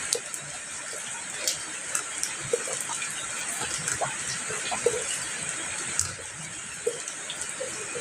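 Steady rainfall, an even hiss with individual drops plinking and ticking at irregular moments throughout.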